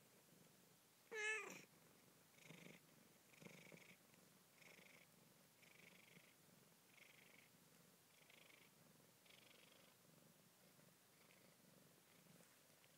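Siamese mother cat purring softly in a slow rhythm of about one breath a second while nursing her newborn kittens. About a second in there is one short, wavering mew.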